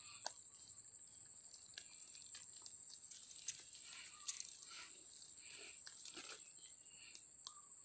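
Faint rustling and crinkling of a woven plastic sack being handled, with scattered small clicks, over a steady high-pitched whine.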